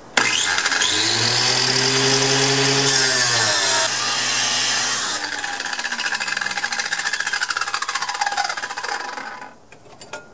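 Small electric abrasive chop saw starting up and cutting through a strip of flat steel, the wheel grinding hard as it bites. About five seconds in the grinding stops and the motor's whine falls steadily as the wheel spins down, dying out near the end.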